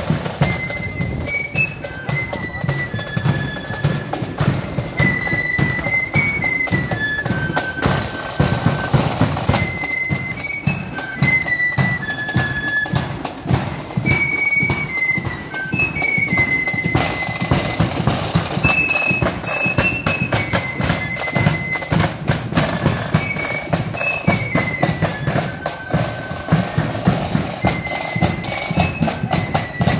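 Marching flute band playing a tune: flutes carrying a single melody line over a steady beat of bass drum and drums.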